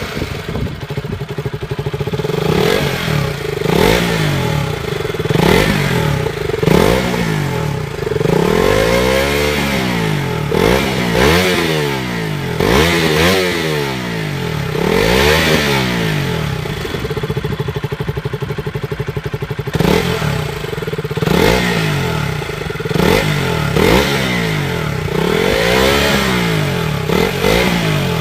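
Hero Honda Splendor Plus's single-cylinder four-stroke engine running with its air filter removed, revved up and let back down again and again, with a short steadier idle partway through. The open intake gives it a throatier note, which the owner likens to a KTM.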